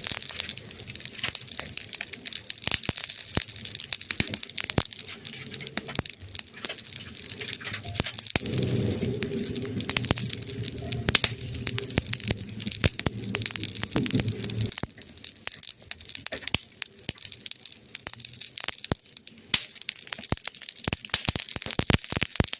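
Wood campfire crackling and popping, with dense irregular snaps over a steady hiss. A low rumble joins in about a third of the way through and stops suddenly some six seconds later.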